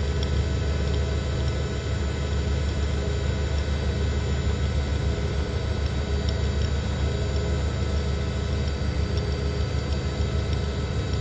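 News helicopter's engine and rotor noise heard inside the cabin: a steady low rumble with a fine beating under a constant whine.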